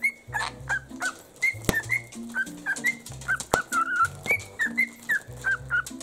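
Background music with a bass line, with short whistled chirps from a cockatiel over it.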